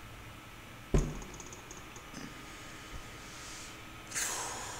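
Quiet room tone with a sharp click about a second in, a few faint clicks after it, and a soft rustling hiss near the end.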